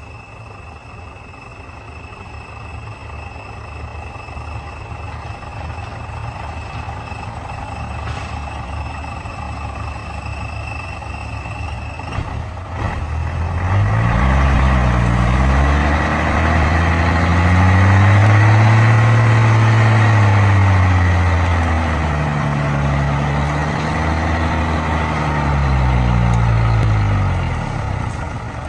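Heavy truck-type engine running at low revs with a steady high whine. From about halfway it revs hard and loud, its pitch rising and falling several times as if working under load. The whine stops about halfway.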